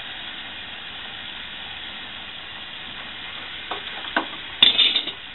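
Hot water running steadily from a tap into a metal pot, a smooth hiss, with two light knocks about four seconds in and a brief clatter just before the end.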